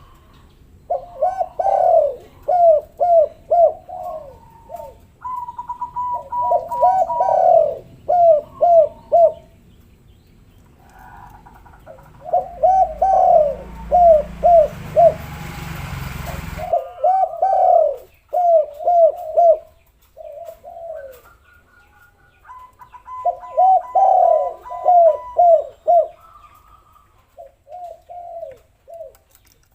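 Spotted doves cooing in repeated phrases, several birds overlapping. A higher, thin piping note joins some of the phrases. In the middle, a few seconds of hissing noise stop abruptly.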